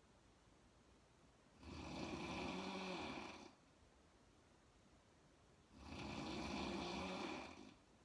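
A woman snoring: two long snores about four seconds apart, each lasting about two seconds.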